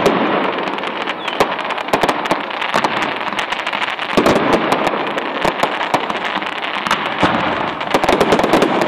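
Fireworks going off in a loud, dense barrage: a continuous crackle broken by many sharp bangs following one another in rapid succession.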